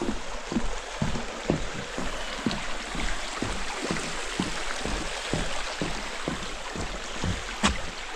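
Footsteps on a wooden boardwalk, thudding on the planks about twice a second over a steady hiss, with one sharp knock near the end.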